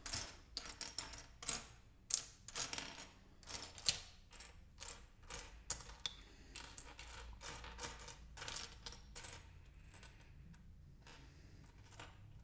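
Loose plastic LEGO bricks clattering and clicking against each other as a hand sifts through a pile of pieces to find a missing brick. The clicks come thick and fast at first, then die down to a quiet stretch near the end.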